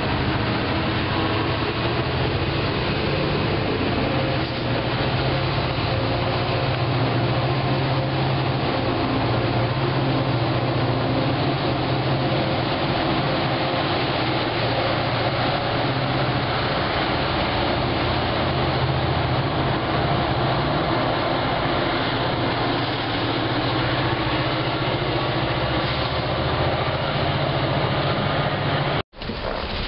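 MBTA F40PH diesel locomotive running with a steady low engine drone as the commuter train pulls away from the platform. The sound breaks off abruptly for a moment near the end.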